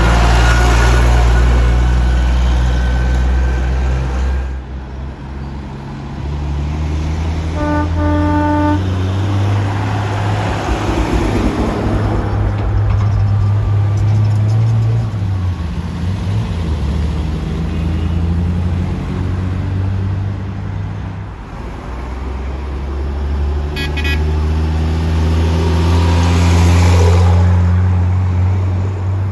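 Historic road vehicles passing one after another, their engines making a low steady drone that swells and fades with each pass. A horn toots once for about a second around eight seconds in.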